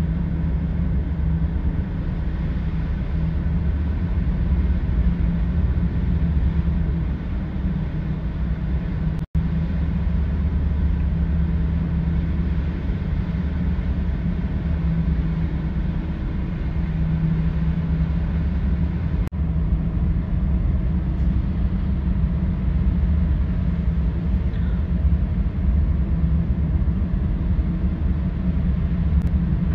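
Car ferry engines running steadily, heard on the open car deck: a low, even drone with a hum, broken twice by a momentary gap.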